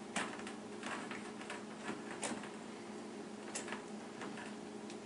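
Faint, scattered clicks and rustles of pliers squeezing a spring hose clip and sliding it along a plastic dishwasher drain hose, over a steady low hum.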